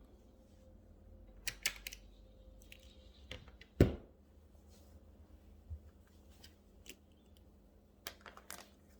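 Quiet handling noises from cross-stitching: scattered small clicks and rustles of needle, thread and fabric, with one louder knock about four seconds in.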